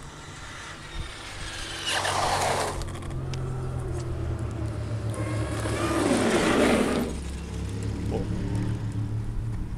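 Large electric RC monster truck, a Traxxas X-Maxx, driving fast past the camera twice. Its tyres hiss on the asphalt and its motor whines as it speeds up, the second pass longer and louder.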